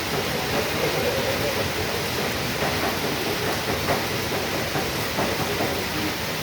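Heavy rain pouring steadily: a dense, even hiss with a low rumble beneath it and faint scattered taps.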